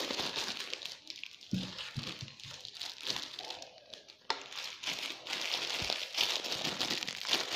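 Thin plastic bag crinkling as steamed sticky rice, mixed with khao mak starter for fermenting, is scooped into it from a stainless-steel pot with a plastic rice paddle. The crinkling grows louder and denser about four seconds in.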